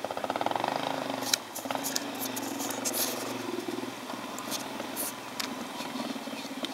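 Dirt bike engine running hard under load as it climbs a steep dirt hill: a pulsing exhaust note, loudest in the first second or so, dipping briefly, then holding steady, with a few short clicks.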